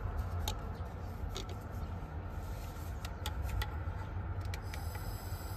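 Low, steady rumble of wind on the microphone, with several light clicks scattered through it.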